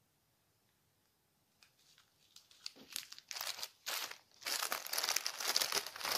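Small plastic baggies of diamond-painting drills crinkling as they are handled and pulled from a larger clear plastic bag. Nearly silent at first, the crinkling starts about two seconds in and becomes steady and loud in the second half.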